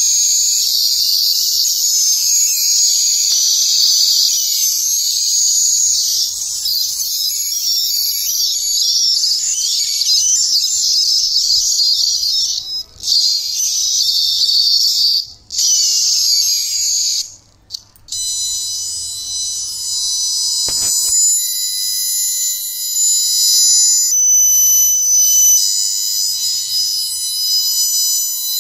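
Solar-powered electronic bird scarer sounding a loud, shrill warbling alarm. It cuts out briefly a few times, then about two-thirds of the way through switches to a steady, piercing electronic tone.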